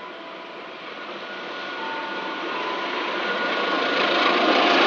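CC 206 diesel-electric locomotive hauling a passenger train as it approaches; its engine and wheel noise grows steadily louder.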